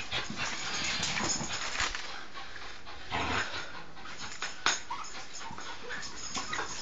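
Pit bull tugging on a toy in a game of tug-of-war, making dog noises with scuffling, and a short sharp snap a little past the middle.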